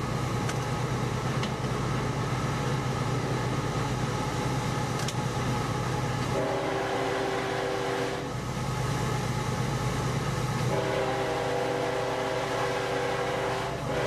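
Steady rumble of a moving diesel freight locomotive heard inside its cab. A multi-note air horn sounds twice over it: a blast of about two seconds about six seconds in, then a longer one of about three seconds near the end.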